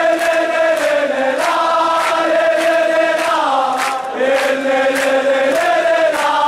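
A large crowd of football ultras sings a chant in unison. The melody moves in held notes that step up and down every second or so, with sharp beats keeping time.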